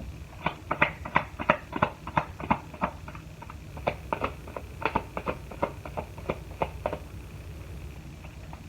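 Lenormand cards being handled on a table: a run of light, irregular taps and snaps, a few a second, that stops about seven seconds in.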